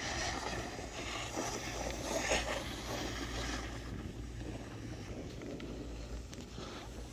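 Steady wind noise buffeting the microphone: a low rumble with a hiss over it.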